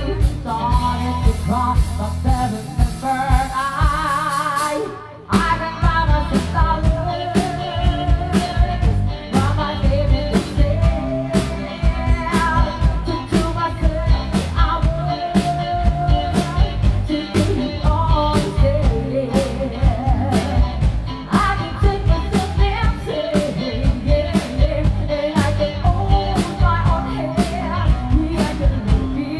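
Live rock band playing a pop-rock cover with a singer, guitar, bass and drum kit. The band thins out and briefly drops just before five seconds in, then comes back at full power with steady drum hits.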